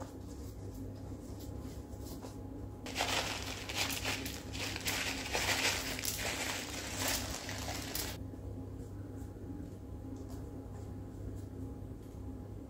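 A loud crinkling rustle, like handling a plastic or paper bag, starting about three seconds in and stopping suddenly about five seconds later, over a faint steady low hum.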